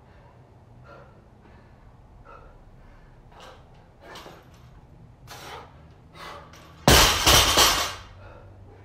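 A 135 lb barbell with bumper plates dropped onto rubber gym mats after a squat clean: one loud crash about seven seconds in, followed by about a second of bouncing and clattering plates.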